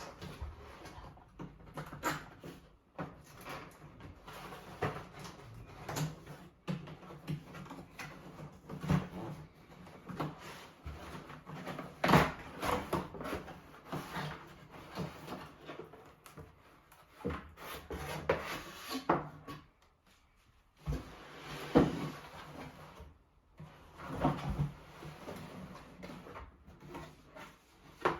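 Cardboard box and packaging being handled during an unboxing: irregular rustles, scrapes and knocks. The loudest knocks come about twelve and twenty-two seconds in.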